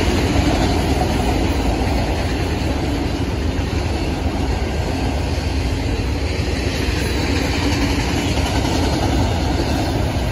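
Union Pacific double-stack freight train rolling steadily past, a continuous rumble of wagons and wheels on the rails, over the steady hum of the stopped Amtrak locomotives idling.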